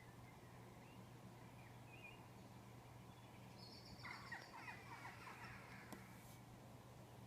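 A pet's squeaky, whining yawn lasting about two seconds, starting about four seconds in, over a faint steady low hum.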